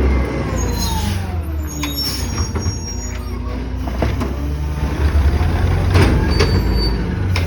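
Garbage truck's diesel engine running with a steady low rumble, a whine that falls in pitch over the first couple of seconds, and a few sharp knocks later on.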